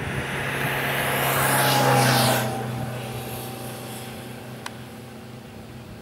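A motor vehicle passing by: its engine hum and a rushing noise swell to their loudest about two seconds in, drop off suddenly, and the hum then fades away.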